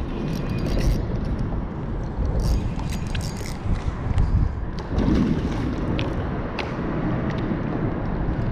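Steady low rumble of wind and water around a small open fishing boat, with a few light clicks scattered through.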